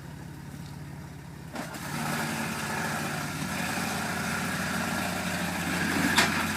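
Off-road vehicle's engine running at idle, then throttle comes on about one and a half seconds in and stays louder as the vehicle works the obstacle. A single sharp knock about six seconds in.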